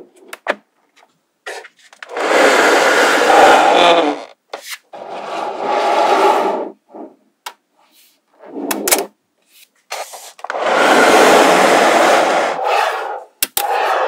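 Walls of small magnetic balls being slid and rubbed along a board, making long stretches of scraping noise, with sharp clicks as magnetic balls snap into place, several of them in quick succession near the end.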